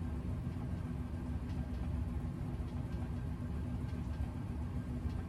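Access vibration plate running: a steady motor hum with one constant tone over a low rumble as the platform shakes.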